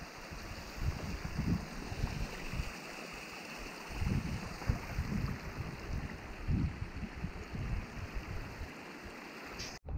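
Wind gusting on the microphone over the steady rush of a small mountain stream running down over rocks. The sound breaks off abruptly near the end.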